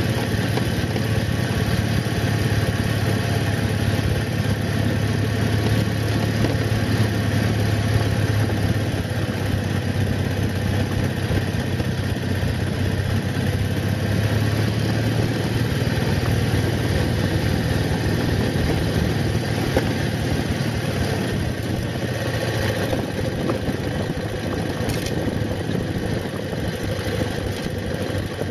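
Motorcycle engine running at a steady, even speed while riding along a dirt road, a constant low hum under a haze of wind and tyre noise.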